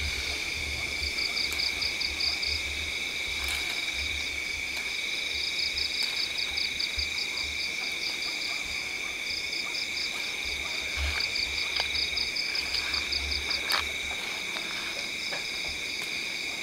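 Night chorus of frogs and insects: a steady high trilling on two pitches, with a faster pulsing trill above it that comes and goes in bursts of about a second, several times over. Under it are a low rumble and a few faint clicks.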